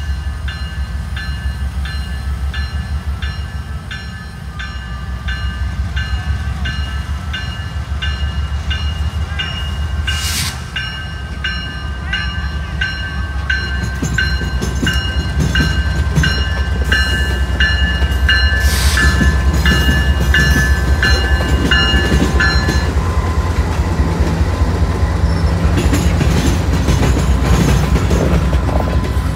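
Grade-crossing bell ringing steadily, about two strokes a second, over the low rumble of a Norfolk Southern diesel freight locomotive that gets louder as it passes about halfway through. The bell stops a few seconds later while the freight cars roll by, their wheels clacking over the rails.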